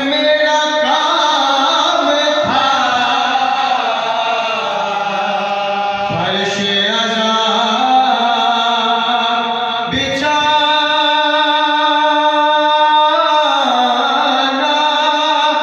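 Male voice chanting an Urdu marsiya qata into a microphone, in long, held, ornamented phrases of about three to four seconds each.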